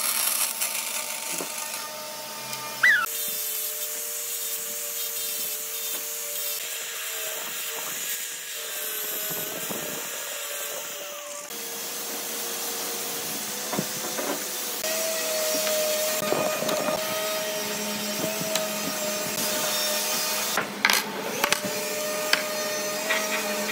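Bandsaw cutting a small hardwood piece, then a steady motor hum with a couple of wavering tones. There are a few sharp clicks near the end.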